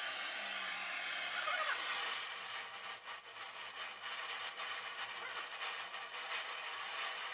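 Gas welding torch flame hissing steadily against a steel radiator pipe, with a few sharp crackles in the second half.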